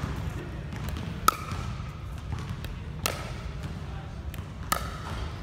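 Pickleball paddle striking a plastic pickleball three times, about every second and three-quarters, each a sharp pop with a short ring, as the tethered Pickleboing trainer ball is volleyed back and forth.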